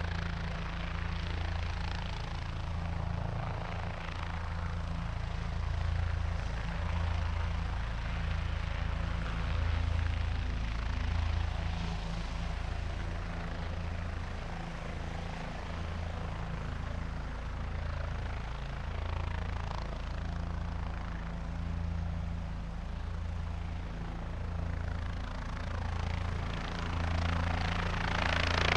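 Helicopter running steadily, its rotor beating in a fast, even pulse over the rush of the turbine. The sound grows louder and brighter right near the end.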